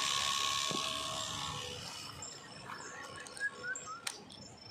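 A motorcycle's electric radiator cooling fan whirring, then winding down and going quiet about a second and a half in. Birds chirp after it, and there is a sharp click near the end as the ignition key is turned.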